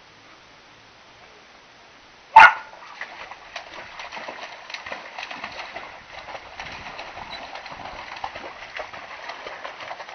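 A dog barks once, loudly, about two seconds in, then water in a shallow inflatable paddling pool splashes and sloshes on and on as the dog moves through it.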